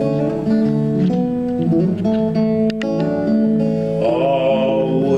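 Solo acoustic guitar played live, picked and strummed chords in an instrumental break of a folk song. A voice comes in about four seconds in.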